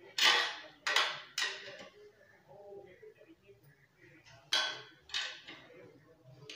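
Metal clinks of a T-handle wrench on the exhaust header flange nuts of a Honda CD-70 motorcycle as they are tightened. Three sharp clinks come in the first second and a half, and two more follow after about four and a half seconds.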